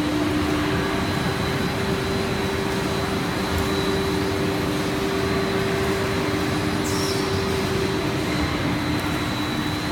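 A JWELL PET sheet extrusion line running: a steady machinery drone with a couple of steady hums running through it.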